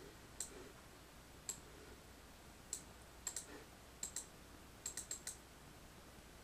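Computer mouse buttons clicking: about a dozen short, sharp clicks, some in quick pairs like double-clicks and a run of four near the end, over a faint steady hum.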